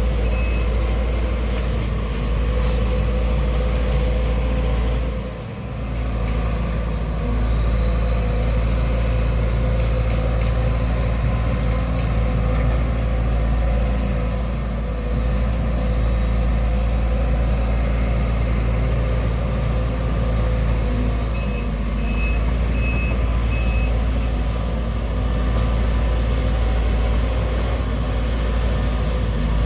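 Heavy diesel engine of a Sumitomo SH210-6 excavator running steadily at working speed. An electronic warning beeper sounds a few short beeps near the start and four more a little after two-thirds of the way through. The engine note dips briefly about five seconds in.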